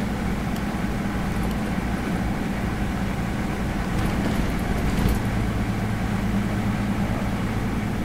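Toyota Land Cruiser 60 Series engine and road noise heard from inside the cab while driving, a steady drone. A few faint clicks come about four to five seconds in.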